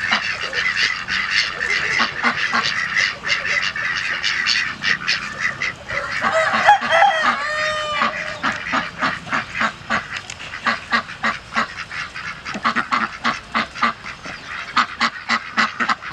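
A flock of white domestic ducks quacking, many short calls in quick succession, densely overlapping at first and thinning to separate quacks later. About six seconds in, a longer, wavering pitched call stands out for a couple of seconds.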